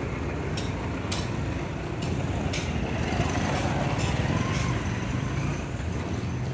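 Street traffic noise: a vehicle engine running steadily, swelling a little in the middle, with a few sharp clicks in the first few seconds.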